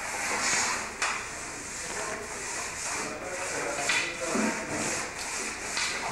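Scraping and rubbing on wood in uneven strokes, from work by hand on the underside of a model railway's wooden baseboard, with a sharp click about a second in.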